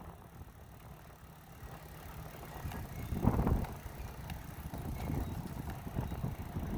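Wind rumbling on the microphone during an e-bike ride, with a louder rush about three seconds in.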